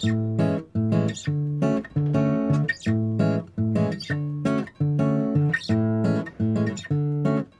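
Background music: rhythmic acoustic guitar strumming chords in a bossa-nova-like groove.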